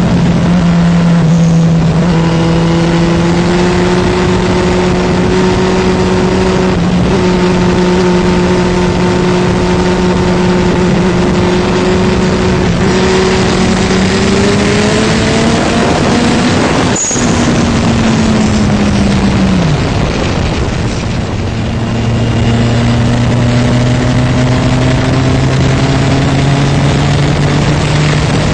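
Turbocharged Suzuki Hayabusa inline-four engine running hard at speed, with heavy wind rush on the microphone. The engine pitch holds steady, climbs past halfway, then drops sharply and climbs slowly again near the end.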